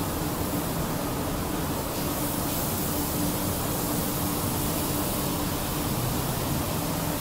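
Steady factory-floor noise: an even rushing hiss with a faint low hum underneath, unchanging throughout.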